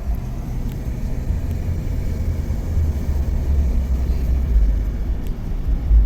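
Low, steady rumble of a vehicle being driven on a mountain road, heard from inside the cab: engine and road noise, growing somewhat louder over the last few seconds.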